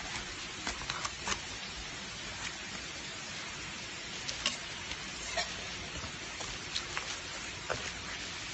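A knife cutting the cheeks out of raw cod heads: scattered small clicks and scrapes of the blade on bone and flesh, over a steady hiss.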